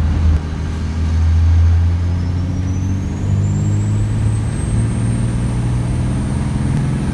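A 5.9 L Cummins 24-valve inline-six diesel with compound turbos, working hard towing a heavy trailer up a steep grade, heard from inside the cab: a steady low engine drone whose note climbs a little about three seconds in. A thin high turbo whistle rises in pitch over a couple of seconds, then holds.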